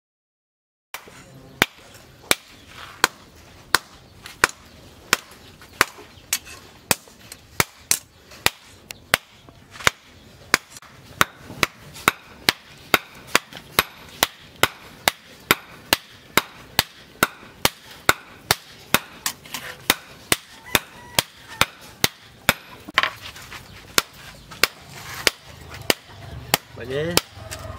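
Hand hammer forging a red-hot steel blade, cut from a piece of chainsaw, on a small post anvil: a steady run of sharp metallic blows, about two a second, starting about a second in.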